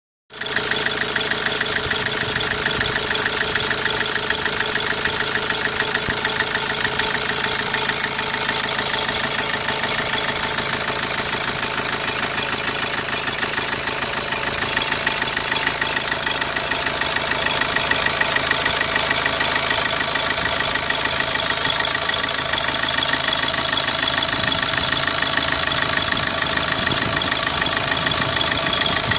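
Opel Corsa D 1.3 CDTi four-cylinder turbodiesel idling steadily with a fine, even clatter: the noise its owner is worried about, though he reports no loss of power.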